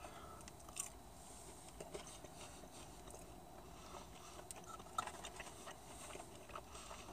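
Faint chewing and mouth sounds of someone eating breaded chicken nuggets, with scattered soft clicks.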